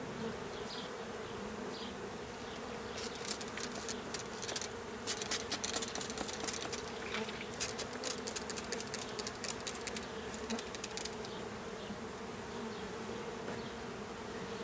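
Honey bees from a package buzzing in a steady, pitched hum. From about 3 to 11 seconds in, a quick run of sharp clicks and rattles from the bee package being handled.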